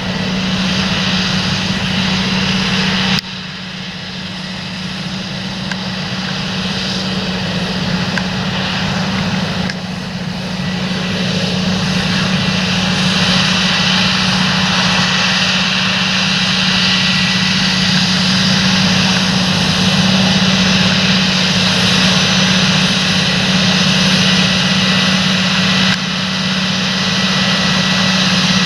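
Large farm tractor's diesel engine running steadily under load, a constant drone with a strong low hum. It drops abruptly about three seconds in and again near ten seconds, then slowly builds louder.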